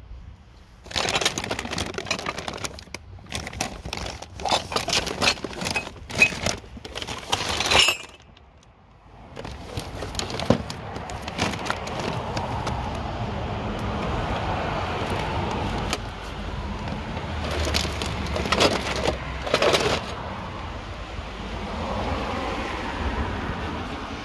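Plastic carrier bags crinkling and plastic toys clattering as they are rummaged through and handled, in a dense run of clicks and rustles. After a short lull comes a steadier rustling noise with a low rumble and scattered knocks.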